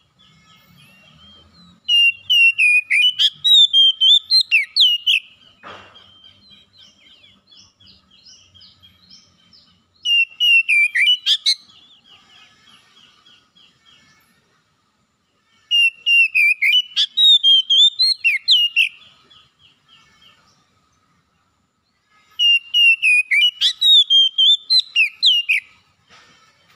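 Oriental magpie-robin singing in four loud bouts of rapid, varied whistled phrases, each about three seconds long, with quieter repeated chirps between the bouts.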